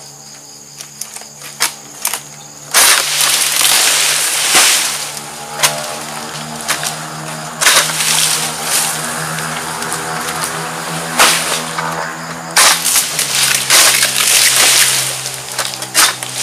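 Oil palm fronds being cut with an egrek, a long-poled harvesting sickle: three times the blade snaps through a frond base with a sudden crack, and each time several seconds of loud leaf rustling follow as the frond drops through the foliage.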